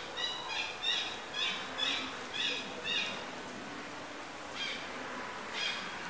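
Short, high chirping animal calls: a quick run of about seven in the first three seconds, then two more near the end.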